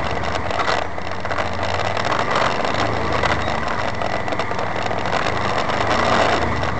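Side-by-side off-road vehicle's engine running steadily, with a constant rattling and jostling of the body and roll cage as it drives over rough rock, heard from inside the open cab.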